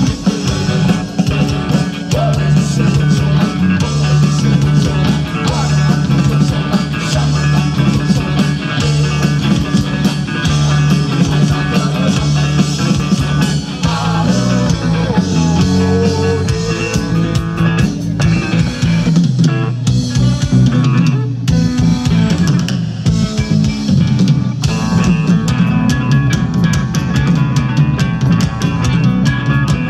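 Ethno-rock band playing live and loud: driving drum kit under amplified dombyras and guitar, with a zhetygen in the mix. The texture changes about halfway through, and the band stops briefly a few times about two-thirds of the way in.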